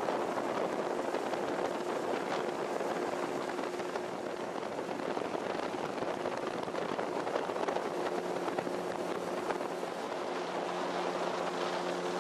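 Small river boat's outboard motor running steadily at speed, with water rushing along the hull; a lower engine tone joins the hum about eight seconds in.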